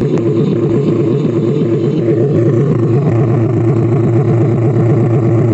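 A speaker playing loud, bass-heavy sound as a steady, dense low rumble. The owner says the speaker's bass is faulty and needs repair.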